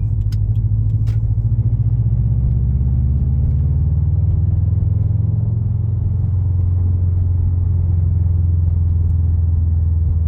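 A 2020 Subaru WRX STI's turbocharged flat-four engine and exhaust running with a steady low drone, its pitch rising slightly about two to four seconds in. A couple of light clicks come in the first second.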